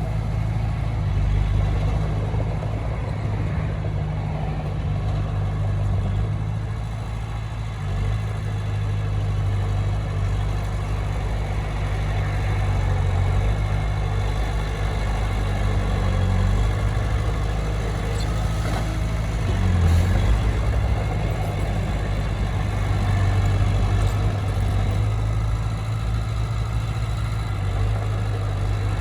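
Heavy machine's diesel engine running steadily at a low, even pitch, briefly louder about two-thirds of the way through.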